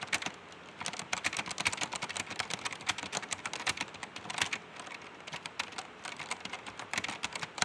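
Typing on a mechanical keyboard with Otemu Brown tactile switches: a fast, irregular run of key clicks, fairly quiet.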